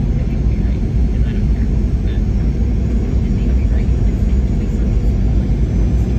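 Steady low rumble of aircraft engines and airflow heard inside an airliner's cabin.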